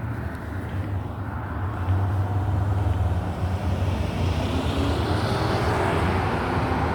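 Road traffic noise: a motor vehicle's rumble and tyre noise growing louder from about two seconds in as it passes close by.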